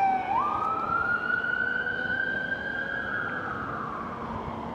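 Emergency vehicle's siren wailing: a falling tone jumps back up just after the start, then slowly rises and falls again, growing steadily fainter.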